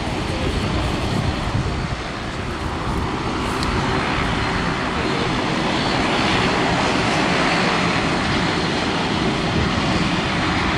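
De Havilland Canada Dash 8 Q400's two Pratt & Whitney PW150A turboprops running as the aircraft taxis, six-bladed propellers turning. A steady drone with a faint hum at one pitch, growing louder from about three to six seconds in.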